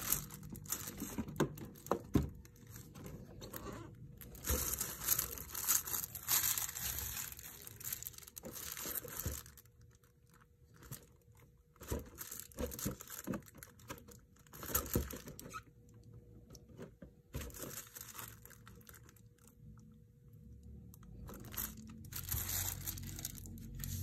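Plastic packaging of a boxed figure crinkling and rustling in several bursts as it is handled and turned, with a few sharp clicks, and quieter gaps between.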